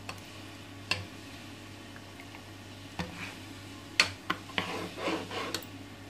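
Metal ladle stirring a thick mutton curry in a nonstick pot, with a few sharp knocks of the ladle against the pot (the loudest about four seconds in) and soft scraping through the gravy. A low steady hum runs underneath.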